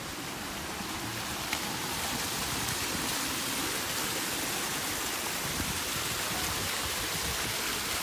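Small waterfall splashing down over rocks into a pool: a steady rush of falling water, growing a little louder about two seconds in.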